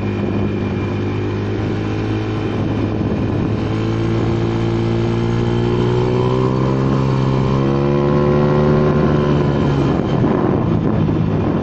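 Engine of a Honda Vario 110 carburettor scooter, bored up to a 55 mm piston (about 130 cc), running under throttle on the road. Its pitch climbs steadily from about three seconds in, holds, then eases slightly near the end.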